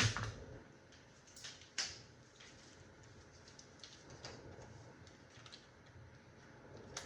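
Scattered light clicks and taps from handling a box fan's parts during disassembly, with a sharp knock right at the start and two more clicks about a second and a half in.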